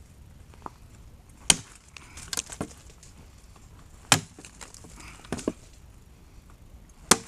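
Gransfors Bruks axe chopping into a log: three hard strikes of the blade biting into the wood, about two and a half to three seconds apart, with fainter knocks in between.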